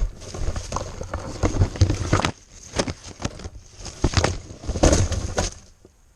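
Irregular sharp knocks and clicks with rustling in between, dying away near the end.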